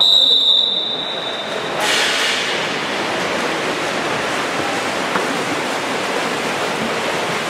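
Water polo referee's whistle: one long, steady, high blast lasting a little under two seconds. It gives way to a steady rushing wash of splashing water and pool-hall noise.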